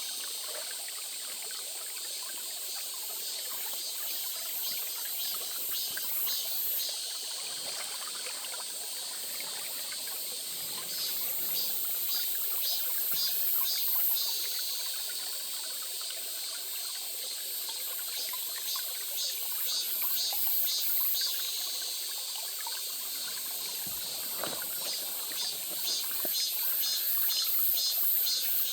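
A stream trickling and running over stones, with insects calling over it in repeated bursts of rapid, high-pitched pulses.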